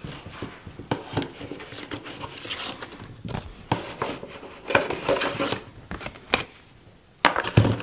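Cardboard packaging and a paper card rustling and scraping as they are handled and pulled out of a box, with scattered light clicks and a louder knock near the end.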